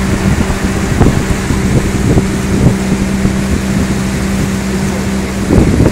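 Pontoon boat's outboard motor running steadily under way, a constant low drone, with wind buffeting the phone's microphone.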